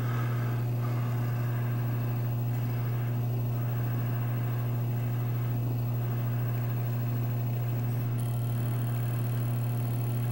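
Amiga computer running: a steady, unchanging low electrical hum with fan noise. A faint high whine joins in about eight seconds in.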